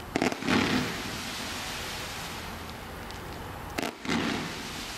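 Brilliant Fireworks 'Silver Cyclone Tail' 100-shot fan-shaped firework cake firing two shots about three and a half seconds apart, one just after the start and one about four seconds in. Each is a sharp crack followed by a louder half-second rush of noise.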